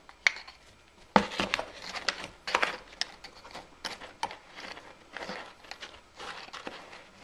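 Moulding sand crumbling and a hand tool scraping and digging through it as a small bronze wheel casting is broken out of its sand mould: irregular crunches, scrapes and clicks, loudest about a second in and again about two and a half seconds in.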